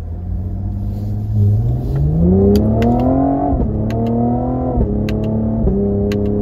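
Cadillac CT5-V's twin-turbo V6 accelerating hard through paddle-shifted upshifts. The engine note climbs and then drops suddenly at each gear change, about three and a half and about five seconds in. A few short sharp cracks come around the shifts: the exhaust's back-pressure pops between gear changes.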